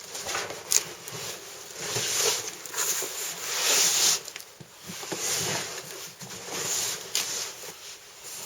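Irregular rustling and scraping as heavy cardboard boxes of books and papers are handled and slid, with a sharp knock about a second in.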